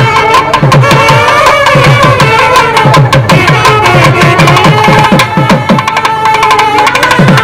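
Nadaswaram playing a sustained, wavering melody over fast thavil drumming.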